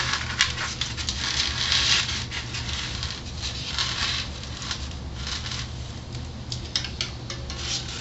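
Styrofoam block rubbing and scraping on a hot-wire cutter table in irregular strokes as it is pushed through the wire, which is slowed by a thick Elmer's glue joint. A steady low hum runs underneath.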